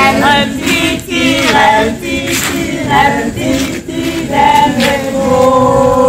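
A group of scouts singing together in chorus, men's and women's voices mixed: the sung call to the campfire.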